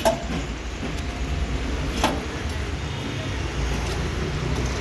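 Two sharp knocks about two seconds apart as a jack stand is set under an e-rickshaw to lift its other rear wheel, over a steady hum of street traffic.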